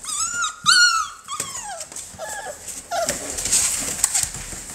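American bully puppy whining: a string of high, arching cries in the first two seconds, then fainter ones.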